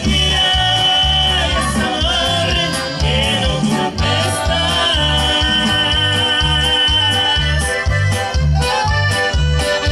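Live regional Mexican band music: a singer holds long notes over a bass guitar and a steady, bouncing bass beat.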